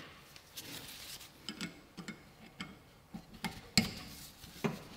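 Light, irregular clicks and ticks of the plastic sealing plug being unscrewed from a new VW Golf 5 rear brake caliper, about eight in all, the sharpest a little under four seconds in.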